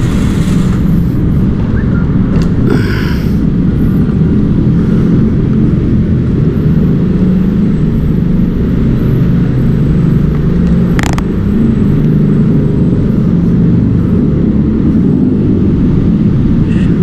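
Motorcycle engine running steadily while riding, under heavy wind rumble on the microphone.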